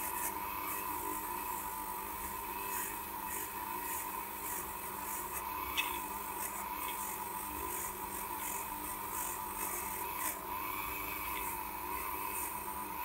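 Dremel rotary tool running with a steady high-pitched whine, its small bit scrubbing surface rust from between the teeth of a David Brown 990 gearbox gear. Irregular scratchy rasping of the bit against the steel, with a couple of light knocks about six and ten seconds in.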